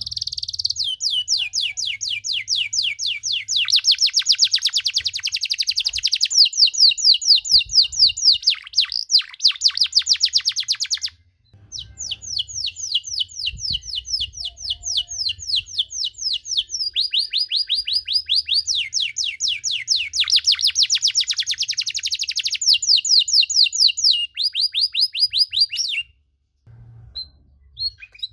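Canary singing a long, unbroken song of fast trills, each a quick run of repeated high notes, with a short break about eleven seconds in. The song stops about two seconds before the end.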